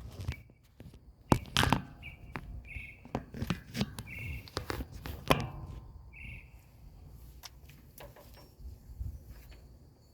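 A bird giving short, high chirps, about five spread through the first six seconds, among several loud sharp knocks.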